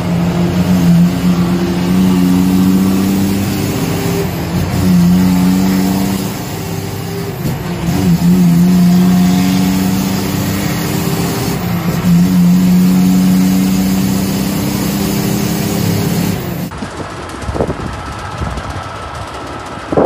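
Heavy truck's diesel engine heard from inside the cab, a loud, steady droning tone that dips and picks up again every three to four seconds. Near the end it cuts off suddenly and a quieter rumble follows.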